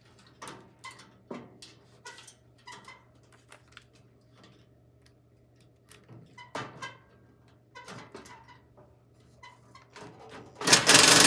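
Small metallic clicks and taps of a screw and wiring being handled against a fireplace insert's metal frame, then near the end a loud, harsh burst of noise lasting about a second.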